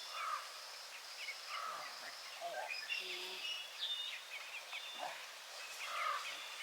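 Several wild songbirds singing and calling at once: short whistled chirps and trills overlapping one another, over a steady outdoor hiss.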